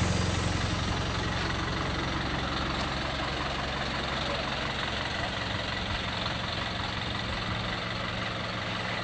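Eicher BS3 bus's diesel engine idling steadily, easing off slightly after the first second.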